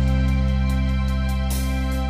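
Soft background music with one chord held throughout.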